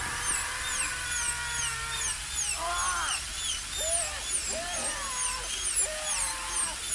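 Dental drill whining, its high pitch wavering up and down several times a second, with short lower glides in pitch from about halfway through.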